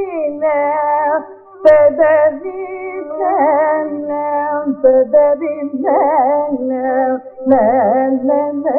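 Carnatic raga alapana in Keeravani: a woman's voice sings slow, wordless phrases full of gliding, shaking ornaments, broken by short pauses. A sharp click comes just after a brief pause, about a second and a half in.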